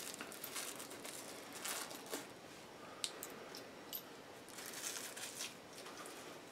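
A small clear plastic hardware bag crinkling faintly as it is handled by hand, with a few light sharp clicks about three and four seconds in.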